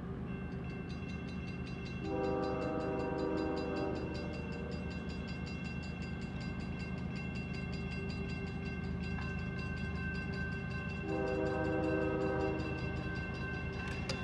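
Diesel locomotive horn of an approaching CSX loaded coal train, sounding two long blasts about seven seconds apart for the grade crossing, over a low steady rumble.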